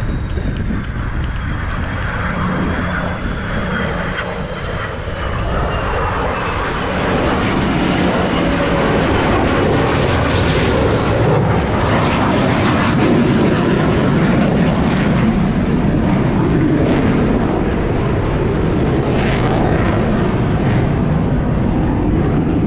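Aircraft engine noise from a military Heritage Flight formation breaking away overhead, heard from the ground. A thin whine falls in pitch over the first six seconds, then the engine noise grows louder and stays loud.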